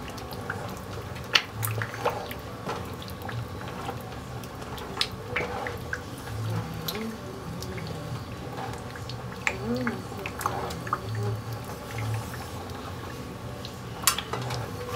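Wooden spoon stirring thick tomato stew in a large metal pot: soft wet sloshing of the sauce, with scattered light taps and scrapes of the spoon against the pot.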